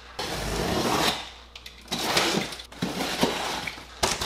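Cardboard shipping box being opened: two long tearing, scraping noises of the packing tape being cut and pulled, about a second each, then a few light knocks near the end.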